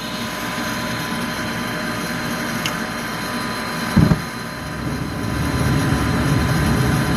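Furnace running: a steady fan roar that starts abruptly, with a short low thump about four seconds in and the roar growing slightly louder after that.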